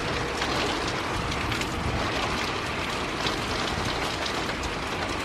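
Heavy wind-driven rain in a severe thunderstorm: a steady dense hiss with many small sharp taps of drops striking close by. Wind rumbles on the microphone underneath.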